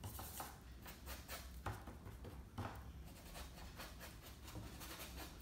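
Faint dabbing and scrubbing of a bristle paintbrush working oil paint on a stretched canvas, with a few soft taps.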